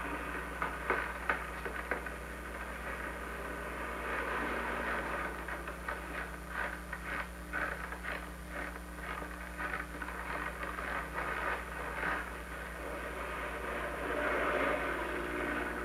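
Worn old-film soundtrack with a steady low hum and hiss. Through the middle there is a run of irregular crackles or crunches, with a louder swell of noise near the end.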